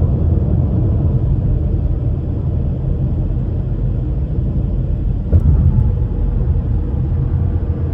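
Steady low rumble of road and tyre noise inside a car's cabin at highway speed, with a single brief knock a little over five seconds in.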